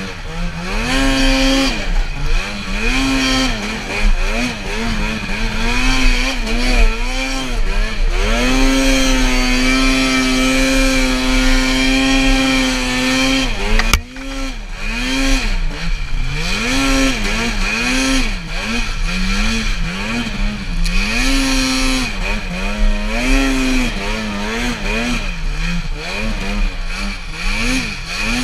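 Arctic Cat snowmobile engine revving up and down again and again as the throttle is worked. It holds a steady high rev for several seconds in the middle, with a sudden brief drop about 14 seconds in.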